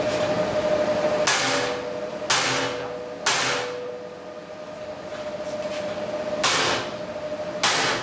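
Sledgehammer blows on steel shear connector studs welded to a steel plate: five sharp metallic strikes, each ringing briefly, three about a second apart and two more near the end. The studs are being knocked over to test the strength of their arc-stud welds.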